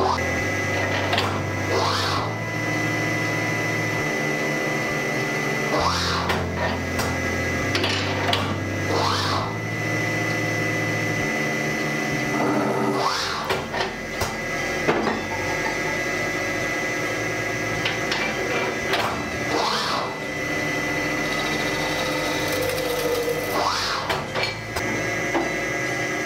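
CNC bar chamfering machine running, its chamfer head spinning as it cuts the ends of threaded bar, with a steady high tone and short swells every few seconds. A backing track with a bass line that changes in steps plays under it.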